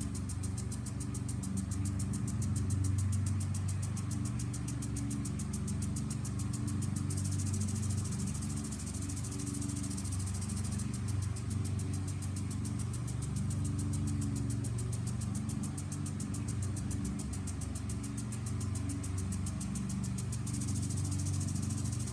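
Lawn mower engine running steadily, swelling and fading a little, with a fast, even high ticking over it.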